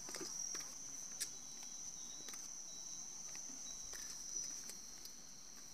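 Insects chirring in a steady high-pitched trill, with footsteps on concrete steps as short knocks about twice a second.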